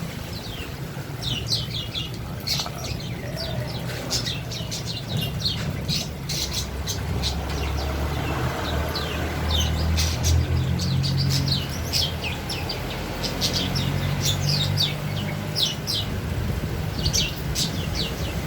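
Small caged songbirds giving many short, sharp, falling chirp calls in quick succession, with some wing flapping, as the aviary birds are stirred up and flit about. A low steady hum runs underneath, swelling for a while in the middle.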